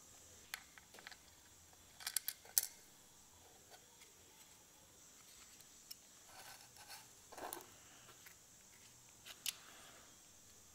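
Faint, scattered light metallic clicks and taps of a thin steel plate being fitted onto the rear face of an aluminium engine block and small button-head screws being set with a hex key; a cluster of sharper clicks about two seconds in and a few more around the middle.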